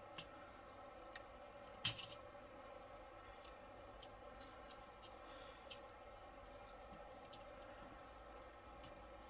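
Small sharp clicks and ticks of metal tweezers against the wire spokes and chromed rim of a 1:8 scale model wheel as a spoke is threaded through. The loudest cluster comes about two seconds in, and the rest are lighter and scattered over a faint steady hum.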